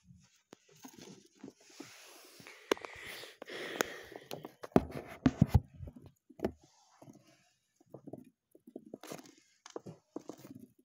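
A hamster scurrying on a hard plastic playpen floor: light scratching and scrabbling of claws on plastic, with scattered taps and a cluster of sharper clicks and knocks about five seconds in.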